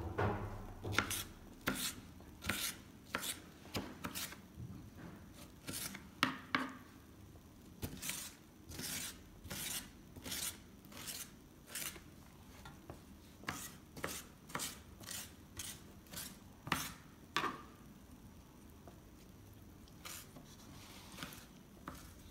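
Knife dicing a tomato on a chopping board: the blade knocks sharply against the board in an irregular run, about one or two strikes a second, with a pause near the end.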